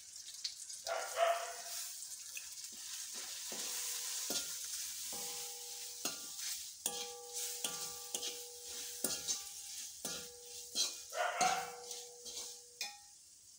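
Chilli and coriander powder frying in onion-tomato masala in a metal kadai, a steady sizzle while a steel spoon stirs it, with many short clinks and scrapes of the spoon on the pan. A faint steady two-note tone runs under the stirring through most of the middle.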